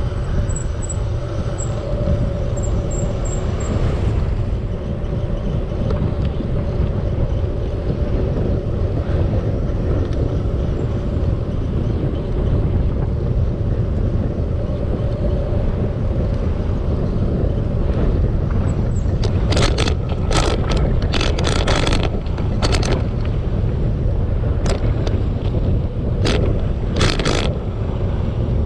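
Wind rumbling steadily on the microphone of a rider on a bicycle. In the last third come about ten short, sharp breaths of a rider who is winded on the climb.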